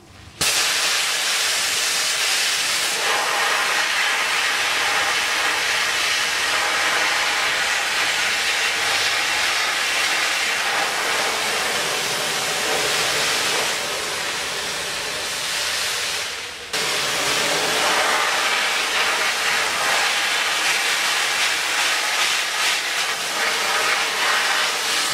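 Pressure-pot sandblaster blasting abrasive grit against a steel moped frame: a loud, steady hiss of compressed air and grit. It starts abruptly and breaks off for an instant about two-thirds of the way through before resuming.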